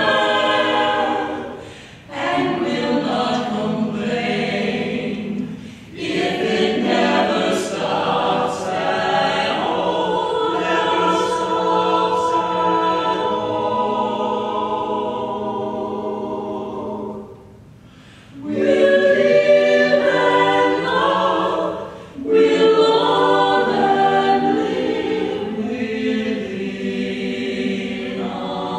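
Mixed vocal ensemble of men and women singing in harmony, in sung phrases separated by short breaks, the longest about two-thirds of the way through.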